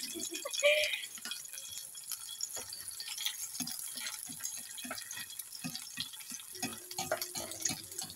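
Egg frying in hot oil in a black frying pan: steady sizzling with frequent small crackles and pops of spattering oil.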